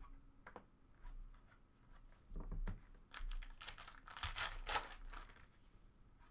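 Foil wrapper of a 2018 Panini Diamond Kings trading-card pack being torn open and crinkled, a dense crackling that starts about three seconds in and lasts about two seconds, after lighter handling sounds.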